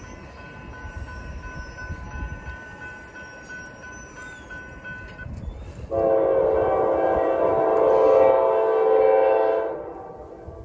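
Norfolk Southern freight locomotive's horn sounding one long chord-like blast, starting about six seconds in and lasting about four seconds, over low wind rumble on the microphone.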